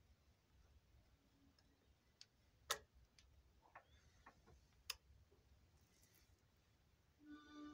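Motorcycle roller chain and pliers being handled, giving a few separate sharp metal clicks, the loudest a little under three seconds in and another about five seconds in; otherwise faint. A brief steady tone starts near the end.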